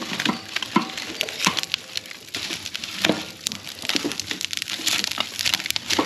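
A shop wood stove being tended: irregular clunks and knocks of firewood and metal, with rustling and crackling in between.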